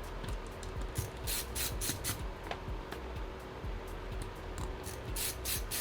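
Short scratchy rubbing and scraping of small parts being handled as a laptop daughter board is worked out of its case, in clusters about a second and a half in and again near the end, over a steady low hum.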